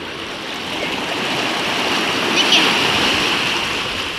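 Small sea wave washing in over shallow water and sand, a hissing rush of foam that swells to its loudest about two and a half seconds in and then eases off.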